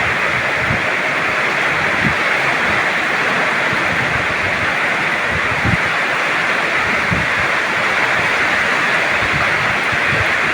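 Heavy rain falling steadily, a dense even hiss, with occasional low buffets of wind on the microphone.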